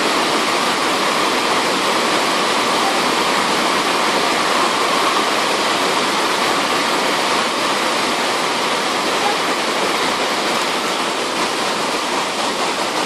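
Heavy rain falling steadily onto floodwater, trees and cars, a dense even hiss.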